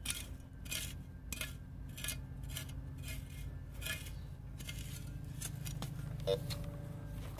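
A metal spade stabbing and scraping into grassy soil in a steady rhythm, a little under twice a second, while a target is dug out. Near the end a metal detector gives a short beep.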